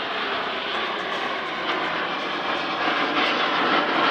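Display aircraft flying overhead: a steady rushing engine noise that slowly grows louder.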